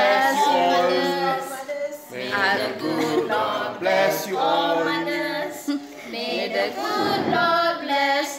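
A small group of people singing together without instruments, in sung phrases broken by short pauses.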